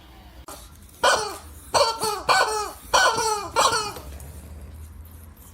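A dog giving a quick series of five short barks or yelps, each dropping in pitch, starting about a second in.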